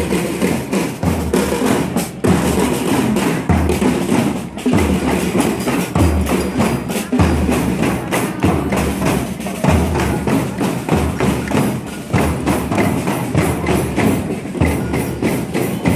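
Music with a steady, regular drum beat and wood-block-like percussion.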